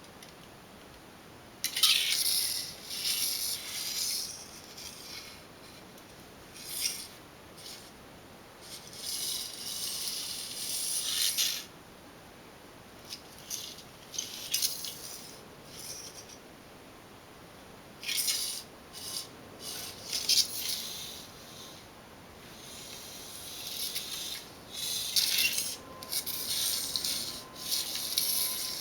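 Aluminium-foil toy on a rope crinkling and rustling in irregular bursts as it is moved and batted about, starting about two seconds in, with short quiet gaps between bouts.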